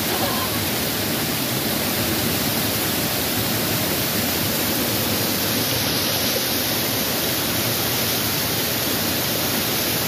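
Small waterfall pouring over boulders into a shallow stream: a steady rush of falling water.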